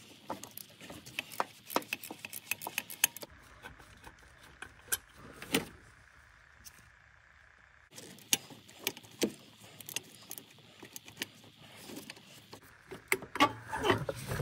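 Hand ratchet on an extension clicking in quick runs as it loosens the 13 mm bolts of an engine-cover support bracket. There is a pause of about two seconds midway, and louder metal clinks near the end.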